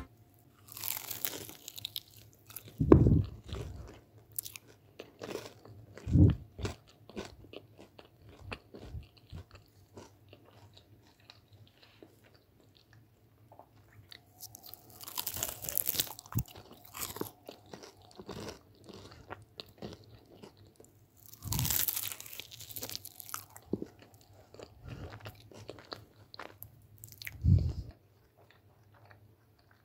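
Close-miked crunching of crisp deep-fried cheburek pastry being bitten and chewed, in several bursts separated by quieter stretches, with a few dull low thuds.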